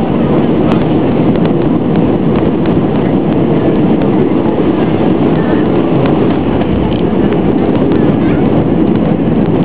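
Steady roar of jet engines and rushing air heard inside the cabin of an easyJet Airbus A320-family airliner as it comes down over the runway to land.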